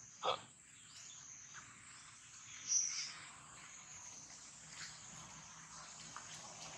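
Steady high-pitched insect drone, with two short squeaks: one just after the start and a louder, higher-pitched one about three seconds in.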